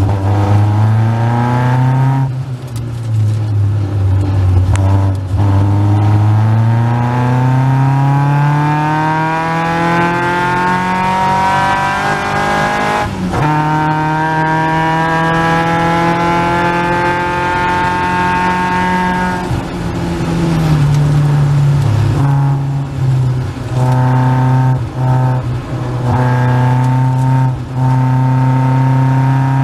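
A Caterham Seven's 2.3-litre Ford Duratec four-cylinder heard onboard under hard acceleration, the engine note climbing steadily through the revs, with a quick upshift about 13 seconds in. Around 20 seconds it lifts and drops in pitch, then runs at steadier revs with several brief lifts off the throttle near the end.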